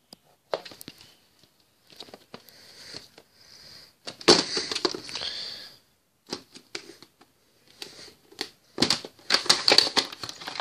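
Hands handling a plastic VHS clamshell case: irregular rustling, scraping and clicks, loudest about four seconds in and again near the end as the case is opened.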